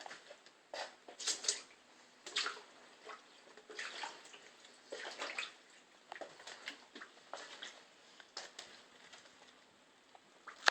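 Footsteps splashing and sloshing through shallow standing water on a floor flooded by a broken water line, an irregular step every half second to a second. A sharp click right at the end.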